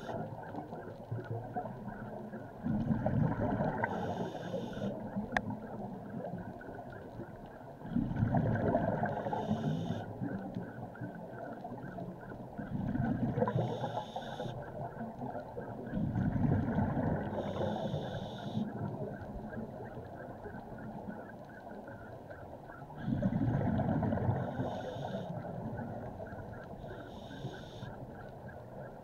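Scuba diver breathing through a regulator underwater: about five breaths, each ending in a surge of bubbling exhaust, with a short regulator hiss between them. A steady faint hum runs underneath.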